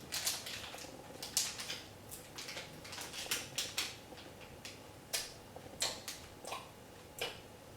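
Plastic wrapper of a chia snack bar crinkling in the hands, with irregular sharp crackles and clicks.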